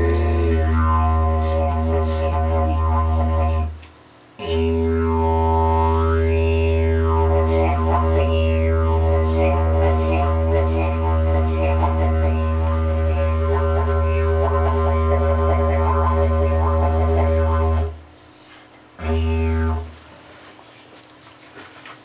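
Handcrafted carved-wood didgeridoo playing a loud low drone, its overtones sweeping up and down in vowel-like waves. The drone breaks off briefly about four seconds in, and near the end it stops, sounds once more briefly, and stops again.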